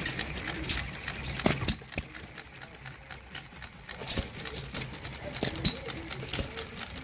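Small model gas engine running: quick, uneven clicking and ticking, with a couple of sharper snaps about two seconds and six seconds in.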